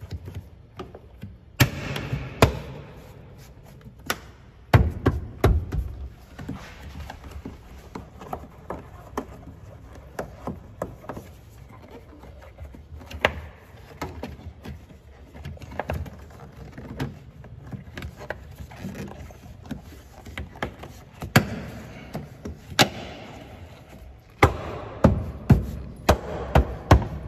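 Plastic interior C-pillar trim and the rubber tailgate-opening seal of a car being handled by hand. They give irregular knocks, clicks and taps as the panel is pulled and pressed against its clips, with a flurry of sharper knocks near the end.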